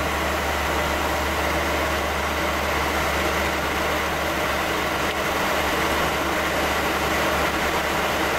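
Steady in-flight noise inside a Boeing 737-300 at cruise: a constant rush of airflow over a low, even hum from its CFM56 turbofan engines.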